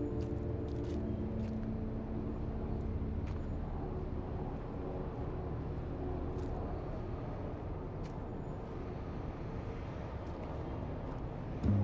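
City street ambience: a steady low rumble of motor traffic, with a few faint sharp clicks.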